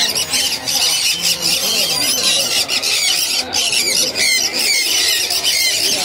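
Many caged lovebirds calling at once: a dense, continuous chorus of overlapping high-pitched chirps and squeaks.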